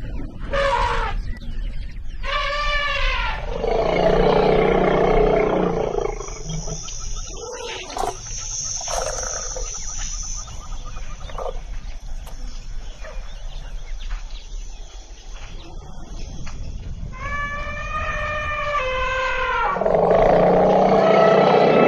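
Wild Asian elephants calling: several loud, high trumpeting calls in the first few seconds, a rougher roar just after, and more trumpeting calls near the end.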